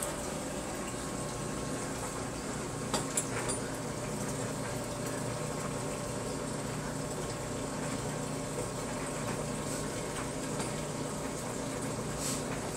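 Steady low hum and hiss, like a running appliance, with a few faint clicks about three seconds in and again near the end.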